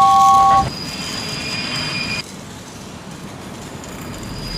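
A toy train's two-note whistle toots at the start, then a battery-powered TrackMaster engine's small electric motor runs with a high whine over a hiss. The motor cuts off about two seconds in and starts again near the end.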